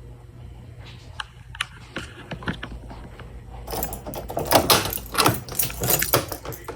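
Handling noise from small hardware: scattered clicks, then a busier run of clattering and rattling from about four seconds in, over a steady low hum.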